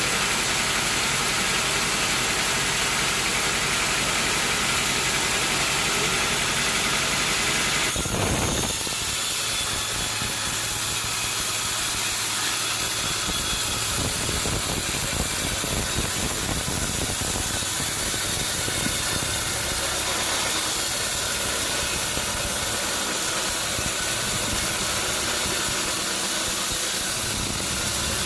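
A motor running steadily under a hissing noise. About eight seconds in the sound changes abruptly: the low hum drops away and the hiss carries on.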